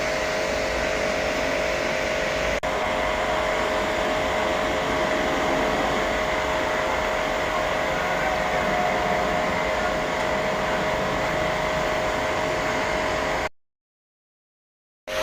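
A small electric motor running steadily with a high whine over a rushing hiss. It cuts to silence near the end and starts again after about a second and a half.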